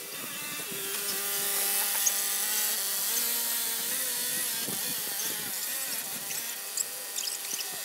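A machine's motor running steadily, its pitch shifting slightly now and then, with a few light clicks near the end.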